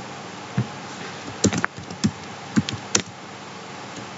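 Keystrokes on a computer keyboard and mouse clicks: about seven short, separate clicks at irregular spacing, over a steady faint hiss.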